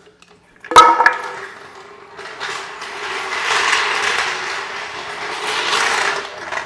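Car jack being fetched and moved: a sharp metal clang under a second in, then several seconds of continuous metallic rattling and scraping that swells twice.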